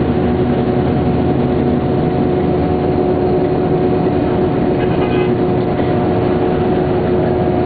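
Scania K420 bus engine running at a steady speed: a loud, even drone with a constant whine whose pitch does not change.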